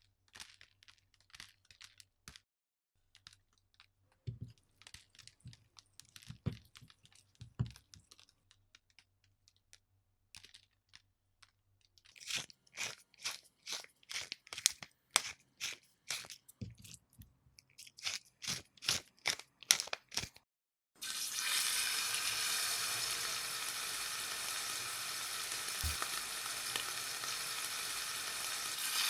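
Kitchen prep sounds: a few light clicks and knocks, then a run of crisp cutting or crunching strokes, about two a second. About two-thirds of the way through, a steady sizzle of food frying in a hot pan starts and keeps going.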